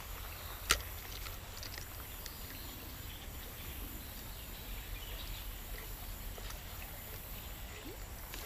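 Quiet outdoor ambience by a creek with a steady low rumble, broken by one sharp click less than a second in, during a cast with a spinning rod.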